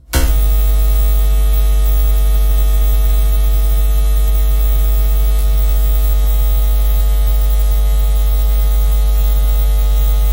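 A loud, steady electrical hum with a buzzing edge, unchanging in pitch; it starts abruptly and cuts off abruptly at the end.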